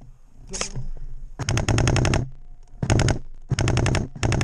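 Airsoft rifle firing on full auto in four bursts of rapid clicking shots at about a dozen a second: a longer burst about a second and a half in, then three short ones.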